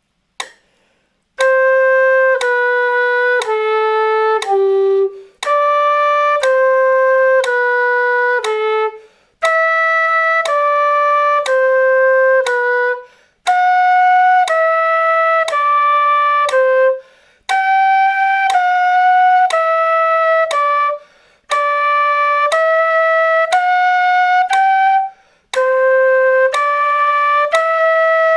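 Quena playing a slow scale exercise, one held note per metronome click at 60 BPM, in groups of four stepwise notes with short breaths between the groups. A metronome clicks about once a second.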